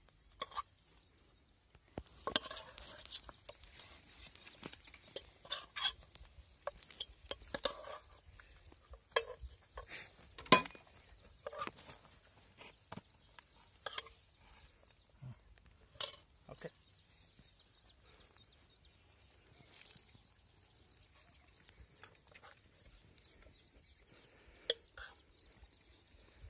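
Metal ladle clinking and scraping against a metal cooking pot as chicken curry is served out, in irregular knocks over several seconds. It goes quieter for a few seconds later on, with a faint high steady tone, before one more clink near the end.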